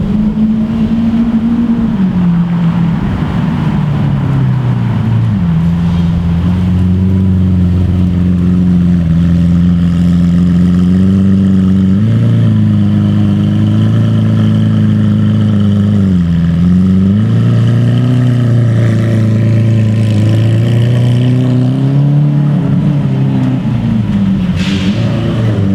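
Lamborghini supercar engine running loud, its pitch falling and rising several times as the revs change.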